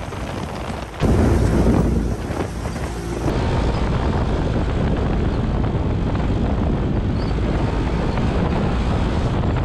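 Side-by-side UTV engine running under throttle as it drives across sand, with wind buffeting the microphone. Quieter for the first second, then louder from about a second in.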